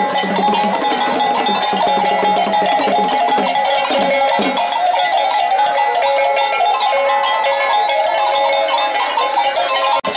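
Street festival music from a dancing crowd: a metal bell struck in a fast, steady rhythm over held tones and crowd voices. The sound drops out for a moment near the end.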